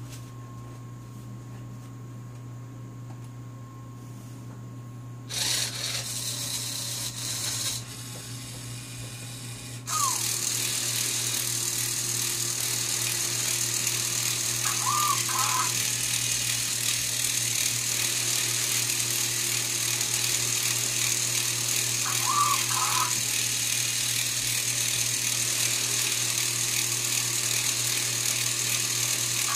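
LEGO Mindstorms EV3 servo motors and plastic gears whirring as an XYZ gantry machine runs its programmed motion. A short burst of motor noise comes about five seconds in, then about a third of the way through a steady whir sets in, with a brief higher-pitched whine every seven seconds or so as the axes move.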